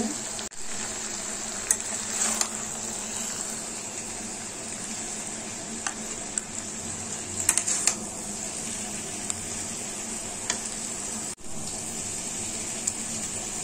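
A metal spatula scraping and clicking a few times against a metal kadai and a china plate as cooked bhindi pyaz masala is served out, over a steady sizzle from the hot pan. The clicks come in a small cluster about two seconds in and another around seven to eight seconds in.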